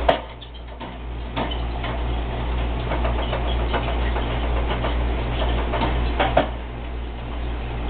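Handling noise from a hand-held camera being panned: scattered light clicks and rustles over a steady low hum, with a sharper click just after the start and another about six seconds in.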